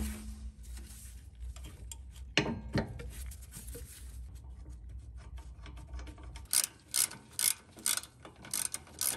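Ratchet wrench tightening the nut on a sway bar end link, its pawl clicking about twice a second over the last few seconds, after a couple of metal clinks from the tool and parts earlier on.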